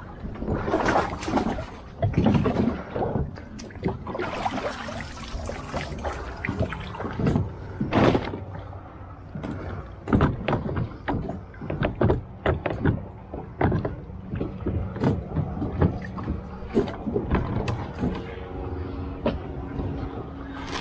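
Knocks, clicks and rustling of gear being handled on a plastic sit-on-top kayak: a PVC kayak cart and the frame seat bumping against the hull, with a few longer swishes in the first few seconds. A steady engine hum from a distant motor comes in near the end.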